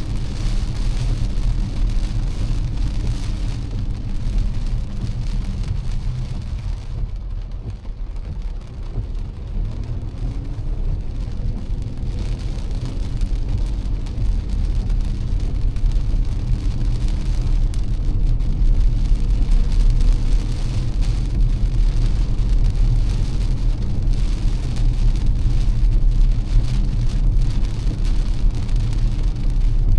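Heavy rain falling on a moving car, with a dense patter of drops over a steady low rumble of road and engine noise.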